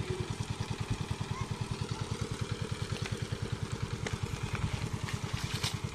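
Pond-dewatering water pump engine running steadily with a fast, even chugging of about ten beats a second, a few faint clicks over it.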